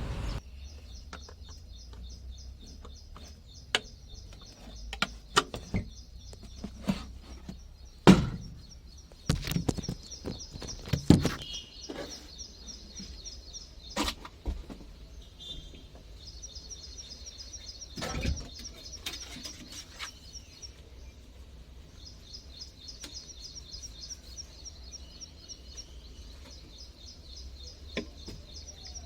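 A bird chirping rapidly and repeatedly in a high, fast trill with a couple of short pauses. Scattered sharp knocks and clanks sound over it, the loudest about eight seconds in, over a steady low hum.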